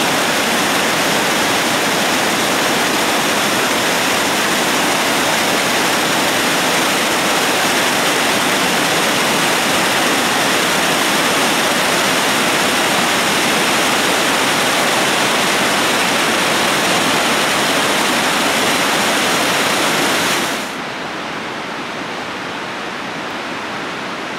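Water pouring over a stone river weir: a loud, steady rush of falling water. About twenty seconds in it drops suddenly to a quieter, steady rush.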